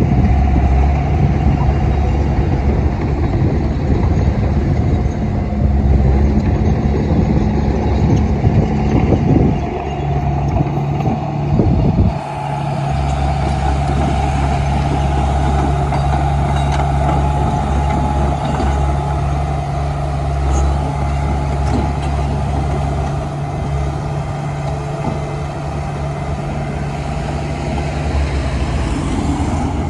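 Komatsu D31P crawler bulldozer's diesel engine running steadily, with a brief dip and a shift in its pitch about twelve seconds in.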